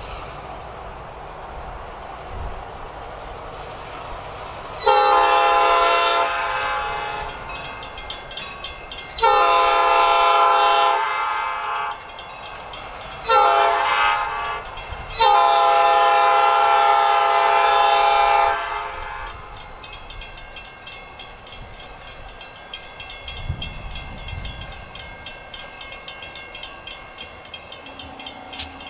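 EMD diesel locomotive's multi-chime air horn sounding the grade-crossing signal: two long blasts, a short one and a final long one, the standard warning for a road crossing.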